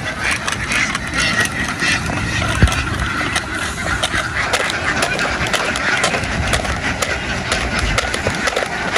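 A large flock of domestic ducks quacking all at once in a dense, continuous din.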